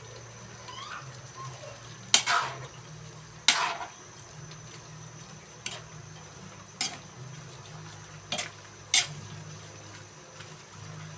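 A cooking utensil knocking against a pot while the food is stirred: six sharp clinks at irregular intervals, the loudest near the start and one near the end, over a steady low hum.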